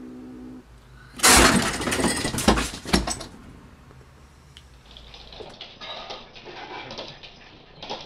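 A cat's drawn-out call breaks off, then about a second later comes a loud crash and clatter lasting about two seconds, with several sharp knocks, as the cat leaps at the window.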